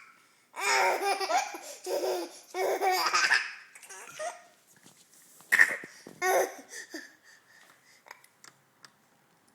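A baby laughing in repeated bursts of giggles: a long run of laughter in the first few seconds, another burst about halfway through, then trailing off into faint breaths.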